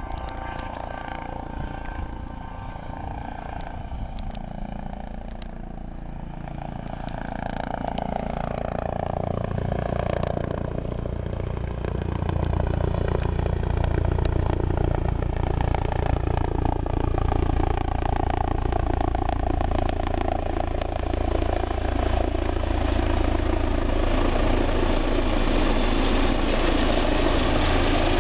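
Eurocopter EC135 rescue helicopter coming in to land. Its rotor and turbine noise grows louder over the first ten seconds or so, then runs loud and steady as it comes down close by. A high turbine whine rises out of the noise near the end.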